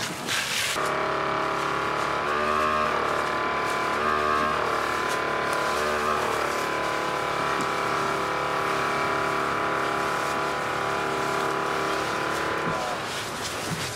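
An engine running at a steady pitch that wavers down and back up a few times in the first half. It starts abruptly about a second in and cuts off near the end.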